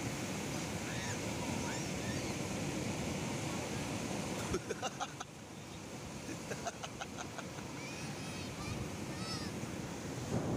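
Ocean surf breaking and washing up a sandy beach, with wind on the microphone. Brief distant calls cut through about halfway through.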